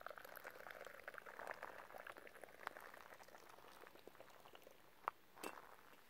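Tea poured in a thin stream from a metal teapot into a small glass, splashing steadily for about three seconds and then tapering off, followed by two sharp clicks near the end.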